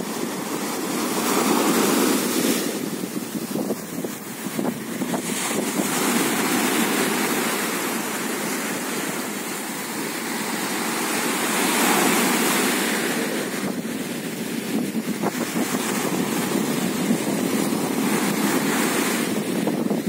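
Small sea waves breaking on a sandy shore and foam washing up the sand, a steady surf wash that swells louder about two seconds in and again around twelve seconds.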